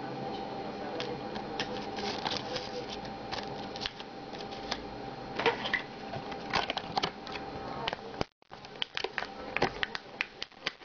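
Hands handling a paper sleeve, a CD and the clear plastic tray of a USB WiFi adapter: irregular clicks, taps and crinkles of plastic and paper, denser in the second half, with the sound cutting out briefly a little after eight seconds in.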